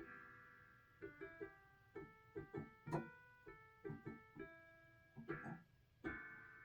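Electronic keyboard improvisation: a chord struck at the start, then held notes and chords changing every second or so, mixed with short banging knocks that come in quick pairs and clusters.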